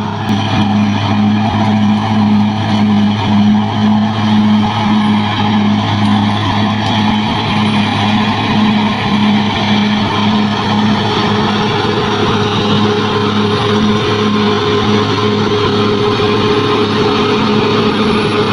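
Bulldozer's diesel engine running steadily under load, a low hum that throbs about twice a second. A higher steady tone joins in about eleven seconds in.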